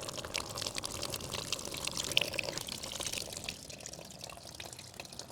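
Engine coolant streaming out of the Honda Rebel 1100's open drain-bolt hole and splashing. The radiator cap has been opened to let air in so the system drains. The flow eases off after about three and a half seconds.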